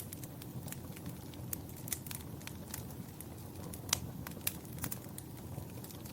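Wood fire burning in a fireplace: irregular sharp crackles and pops over a steady low rumble of flames, with two louder pops around the middle.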